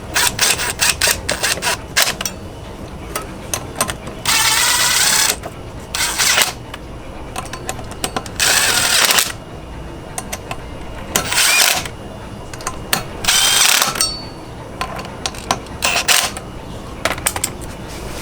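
Cordless power driver spinning bolts in, in about six short bursts, with the clicks and knocks of tools and parts being handled in between.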